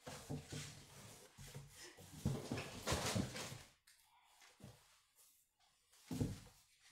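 Rustling and shuffling of items being handled and packed, with louder bursts in the first few seconds and a short knock about six seconds in.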